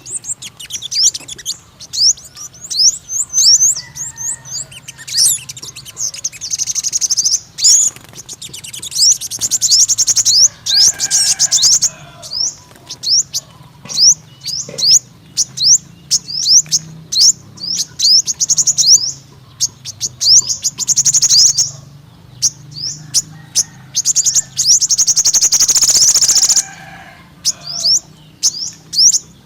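Sunbird song: a steady run of short, high, thin chirps, broken several times by fast buzzing trills lasting one to two seconds.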